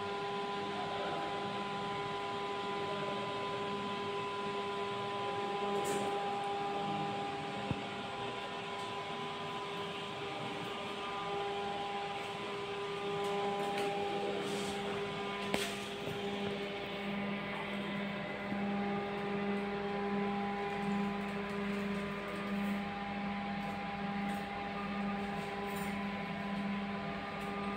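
Steady electrical hum made of several fixed tones over an even fan-like hiss, with a couple of brief clicks.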